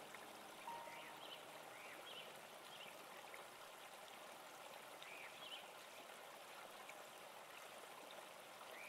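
Near silence: a faint steady hiss, with a few faint short high chirps scattered through it.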